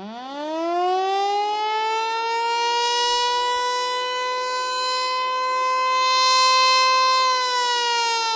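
Federal Signal Eclipse 8 outdoor warning siren sounding a steady alert-signal test. It winds up quickly over the first couple of seconds to one steady tone with many overtones, holds it, and begins to wind down near the end.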